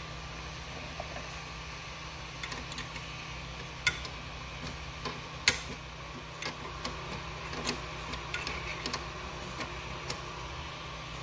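Steady hum of the 3D printer's fans with scattered small clicks and taps of hot-end parts and a wrench being handled, two sharper clicks about four and five and a half seconds in.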